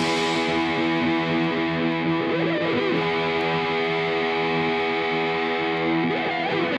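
Background music: distorted electric guitar holding sustained chords, with no drums or bass.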